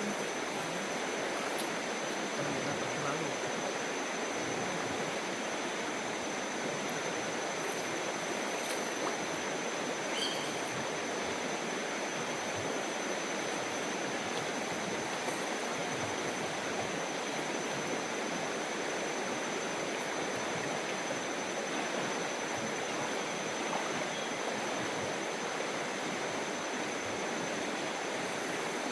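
Mountain river flowing over rocks: a steady, even rush of water, with a faint steady high tone above it.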